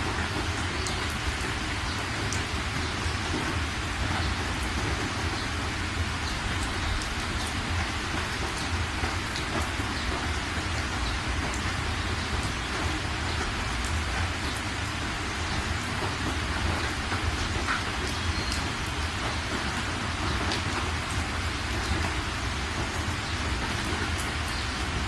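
Steady hiss of falling rain with a low rumble beneath it and scattered faint ticks.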